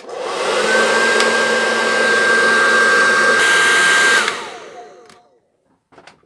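Hair dryer switched on and blowing steadily with a high motor whine over the rush of air, then switched off about four seconds in, its whine falling away as it winds down.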